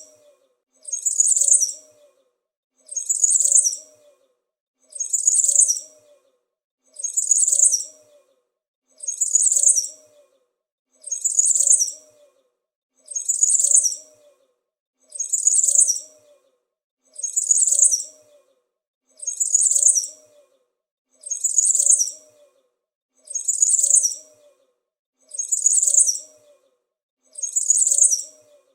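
Small bird chirping: a short, high-pitched burst of chirps repeating at an even pace, about one every two seconds.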